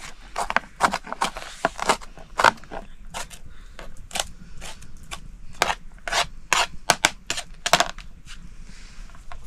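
A series of irregular sharp knocks and scrapes, about two to three a second, thinning out near the end.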